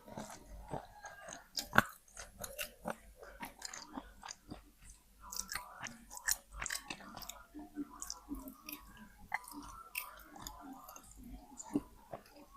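Wet slate pencil being bitten and chewed: a run of sharp, irregular crunches and gritty crackling as the soft chalky stone breaks between the teeth.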